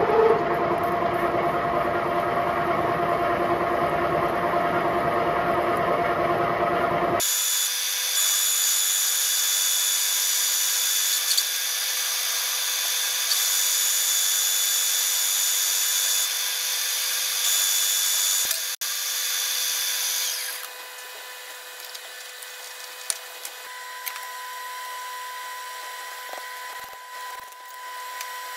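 Elliott Victoria V2 milling machine running, its long helical-fluted cutter milling a thick steel plate: a steady machining noise with a constant whine. About seven seconds in the low rumble cuts out abruptly, and about two-thirds of the way through it becomes quieter.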